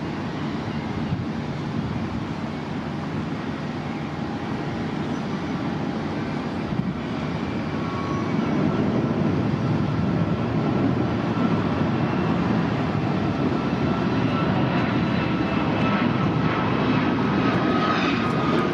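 Jet airliner's engines at takeoff power: a steady rumble that grows louder about eight seconds in, with a faint whine from the engines above it.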